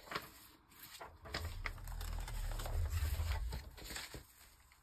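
Papers being handled on a craft table: light rustling and small taps, with a low rumble from about a second in that lasts roughly two seconds.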